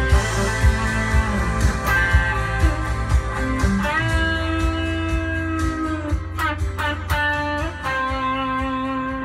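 Band playing the closing bars of a song, led by guitar with a slide-guitar feel; the bass drops out about eight seconds in and a final chord rings on.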